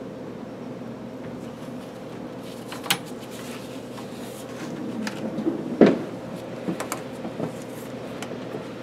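Metal clicks and knocks from hands working a lathe's four-jaw chuck and setting a dial indicator against it: one sharp click about three seconds in, the loudest knock just before six seconds, then a run of lighter clicks. A steady low hum sits underneath.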